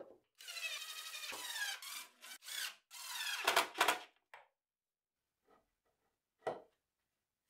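Squeaky rubbing and scraping in a few short strokes as a spacer and stop collar are worked onto the steel axle, stopping about four seconds in. A single short knock follows near the end as the plywood band saw wheel is set on the axle.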